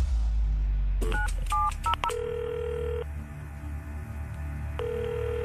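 Telephone keypad tones dialing a quick run of digits, then the ringing tone on the line, heard twice as the call is placed, over a low music drone.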